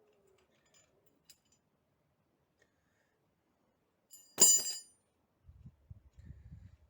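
A single sharp metal clank that rings briefly, about four and a half seconds in, then soft low irregular thuds near the end, as a car's shock absorber strut is handled and worked by hand to test its action.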